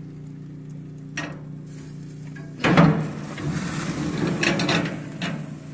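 Clatter and scraping on the smoker's metal cooking grate as a whole smoked chicken is lifted out by hand onto a platter: a small knock about a second in, then a sharp loud knock about two and a half seconds in and two seconds of rattling and rustling. A steady low hum runs underneath.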